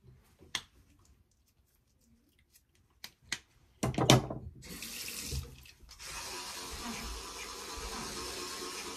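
A few light clicks and a loud rustling knock from handling near the microphone, then a water tap starts about five seconds in and runs steadily into a sink.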